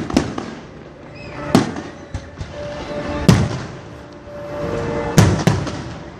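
Aerial fireworks shells bursting in a series of sharp booms a second or two apart, each with a short echoing tail, with music playing between them.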